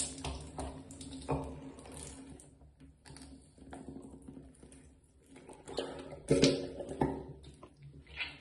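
High-volume saline nasal rinse: a soft plastic squeeze bottle pushing salt water up one nostril while it runs out of the other. It comes in several short bursts, the loudest about six to seven seconds in.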